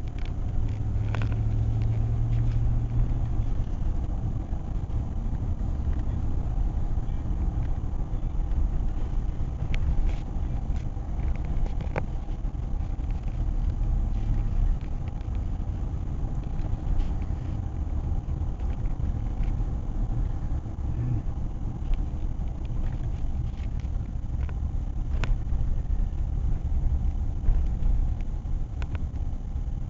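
Steady road and engine rumble inside a moving Chevrolet car's cabin, with a few faint clicks.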